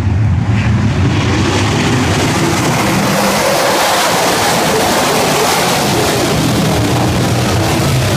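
A field of 410 winged sprint cars racing past, their methanol-burning V8 engines blending into one loud, dense roar that builds about a second in as the pack comes by and holds as the cars go into the turn.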